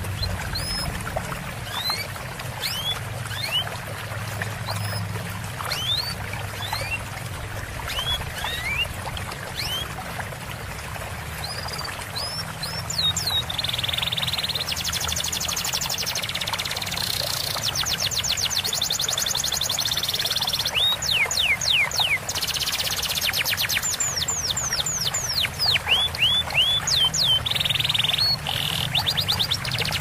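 Songbird training recording: small birds giving short rising chirps, then from about halfway through dense rapid high trills and quick falling whistles, over a steady trickle of running water.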